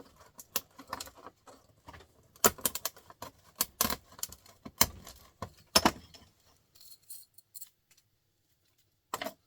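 Small steel parts of a printer motor clinking and knocking against each other and on a hard surface as the motor is taken apart. Sharp clicks come in quick succession for the first several seconds, the loudest between about two and six seconds in, then it goes quiet until one more knock near the end.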